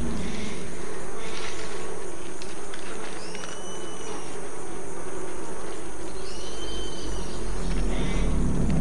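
Insects buzzing and chirping steadily in tropical forest ambience, with a high call that rises and falls in pitch twice, a few seconds apart.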